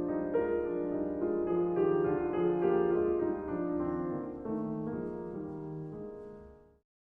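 Instrumental background music led by piano, with slow sustained notes that fade out near the end into silence.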